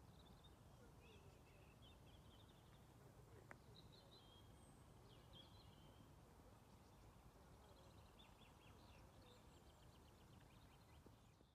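Faint birdsong: scattered chirps and short phrases, with a quick run of repeated notes near the end, over a low steady background hiss. A single soft tick sounds about three and a half seconds in.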